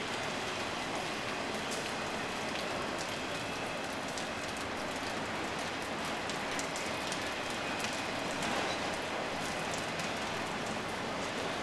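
Autorack freight cars rolling past: a steady rush of steel wheels on rail with scattered light clicks.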